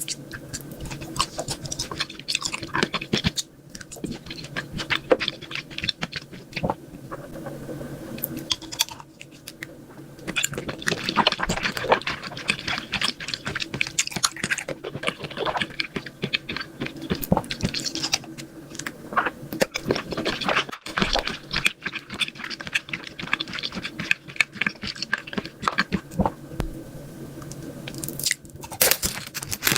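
Close-miked chewing and crunching of a sweet dessert, with many short crunches and crackles one after another and a faint steady hum underneath.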